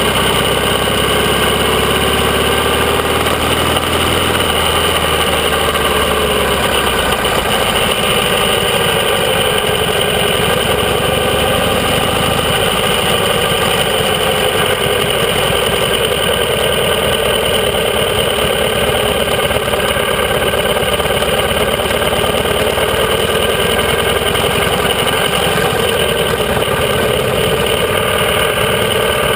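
Classic motorcycle engine running at low speed under the rider, steady and loud, easing off in the first few seconds.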